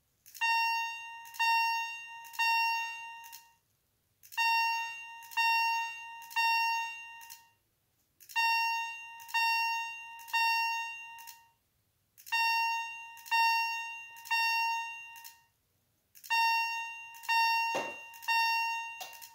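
Simplex 4906-9136 fire alarm chime sounding in groups of three ringing electronic chime tones, each fading away, with the groups repeating every four seconds in the temporal-three evacuation pattern. A single knock comes near the end.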